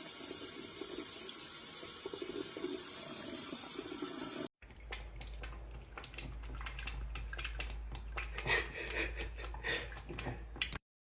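Water running steadily from a tap, which cuts off abruptly about four and a half seconds in. A different stretch follows: a string of small clicks and knocks over a low steady hum, ending suddenly shortly before the end.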